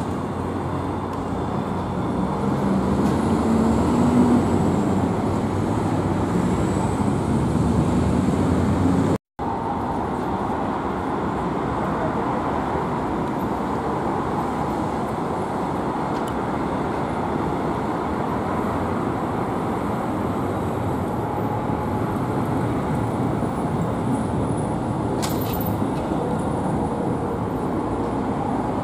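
An Alstom Citadis tram passing with a rising and falling whine over steady street noise. After a sudden break about nine seconds in, steady road traffic noise follows as a car and a tram pass.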